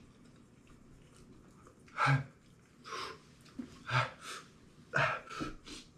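A man huffing and gasping through his mouth from the burn of very hot wings. After about two seconds of quiet there is a run of about seven short, sharp breaths, a couple with a low grunt in them.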